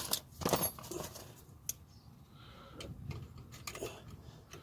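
Irregular light metallic clicks and knocks of drum-brake parts, the shoes and springs, being handled and fitted into place by hand.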